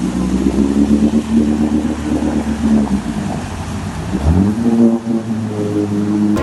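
4x4 off-road vehicle's engine running steadily, then revving up with a rising pitch about four seconds in.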